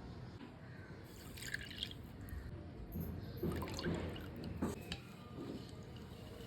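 Liquid being poured and dripping into a bowl, with a few soft irregular splashes and knocks about halfway through.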